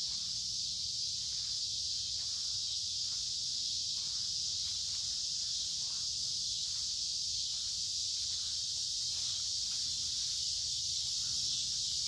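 Cicadas singing in a steady, unbroken high-pitched drone. Faint footsteps of someone walking sound underneath.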